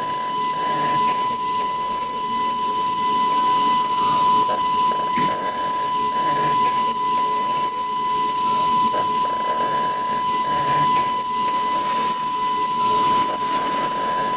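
A JD-TX5 five-axis dental CAD/CAM milling machine running, its spindle giving a steady high whine. Over it comes a higher, shrill cutting sound that stops for a moment every two seconds or so as the tool moves between passes.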